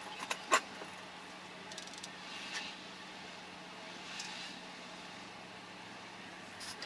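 A few small sharp clicks and taps from makeup items being handled, an eyeshadow palette and brush, the loudest about half a second in and a short cluster near the end, over a steady faint hum and hiss.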